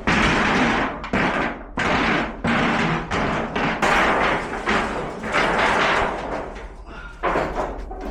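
Pieces of a dismantled metal shed being thrown and dropped as debris is loaded: a run of loud clattering crashes, about one a second, each cutting in sharply, growing fewer and quieter near the end.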